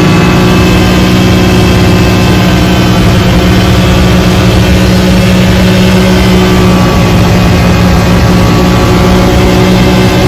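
Arctic Cat Wildcat XX side-by-side's engine running at a steady cruising speed, with a loud, even engine drone over a low, uneven rumble of the ride.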